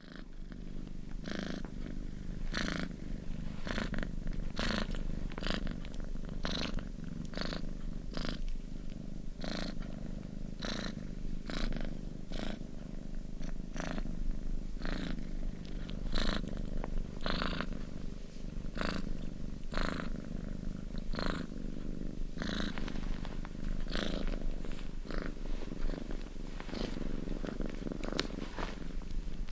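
Domestic cat purring steadily: a continuous low rumble, with a breathy hiss that comes and goes about once a second.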